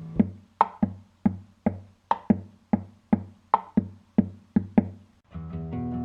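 Downtempo electro-acoustic instrumental music: a rhythmic run of short, quickly fading pitched percussive notes, about three a second, then after a brief pause about five seconds in a sustained chord comes in.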